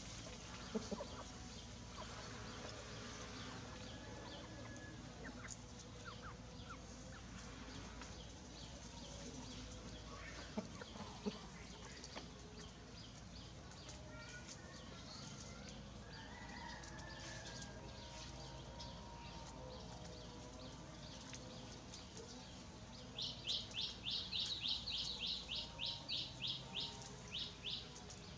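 A rooster and chicks foraging: faint clucking and soft peeping with a few sharp clicks. For the last five seconds a rapid run of high chirps, about five a second, is the loudest sound.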